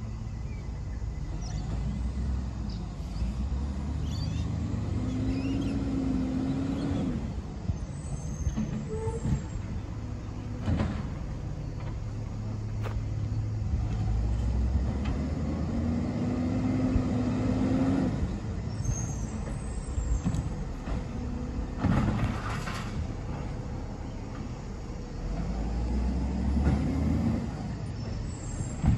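Garbage truck engine running and revving up twice, each time with a held hydraulic whine, and two sharp knocks, one after each rev.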